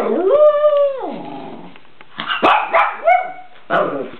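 Pekingese dog barking and yipping: one long drawn-out cry at the start, then a quick run of short yips about two seconds in.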